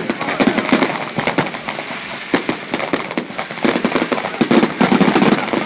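Fireworks display going off: a dense, continuous run of sharp cracks and pops in quick succession.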